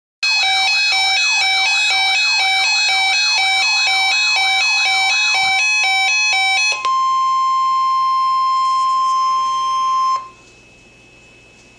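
Emergency alert broadcast: an electronic alarm sounds in a fast repeating beeping pattern for about six seconds, then switches to a single steady 1050 Hz NOAA Weather Radio alert tone for about three seconds, which cuts off abruptly, leaving faint radio hiss.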